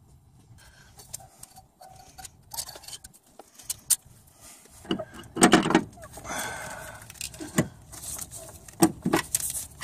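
Scattered metallic clinks and knocks of engine parts and bolts being handled as a new water pump is set in place on a V6 engine block, with louder knocks about halfway through, a short scrape, and more clinks near the end.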